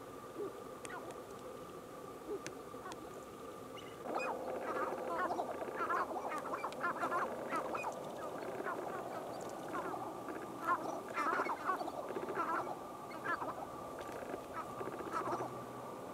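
Sharp-tailed grouse calling: a few single short calls, then from about four seconds in a dense chorus of short calls from several birds, the sound of males displaying on a lek.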